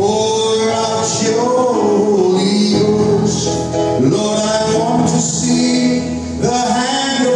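A man's voice singing a slow worship song into a microphone, with long held notes, over keyboard accompaniment through the hall's sound system.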